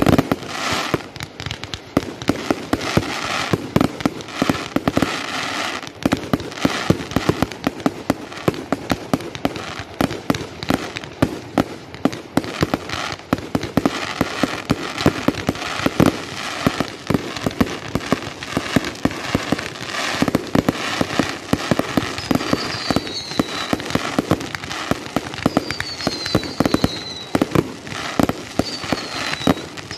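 Fireworks display: a dense, continuous run of firework bangs, pops and crackles with no break. Several short falling whistles come in during the last third.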